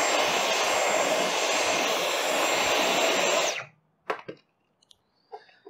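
Dyson V12 Detect Slim cordless stick vacuum running steadily on its lower eco setting with a brush tool, with a thin high whine over the rush of air. It cuts off suddenly a little past halfway, followed by a couple of light knocks.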